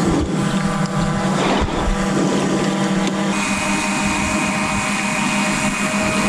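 Camera drone's propellers whining steadily in a hover, a stack of even tones with a higher tone joining about three seconds in.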